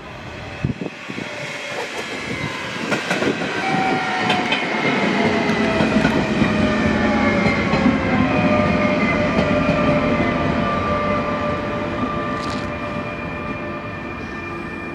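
DSB ER (IR4) electric multiple unit pulling into a station and braking to a stop. Its traction motors whine in several tones that slowly fall in pitch as it slows, over the rumble of wheels on rail, with a few sharp clicks in the first few seconds.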